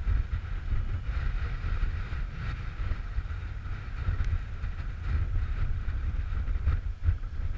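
Wind buffeting the microphone in a loud, uneven low rumble, over a steady hiss.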